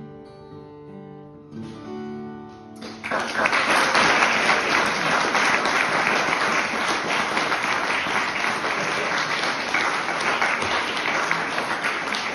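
Acoustic guitar ringing out the last chords of a song, then an audience bursts into applause about three seconds in, steady and much louder than the guitar.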